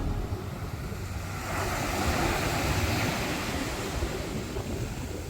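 Ocean surf washing onto the beach, one wave swelling to its loudest about two seconds in and then easing off, with wind rumbling on the microphone.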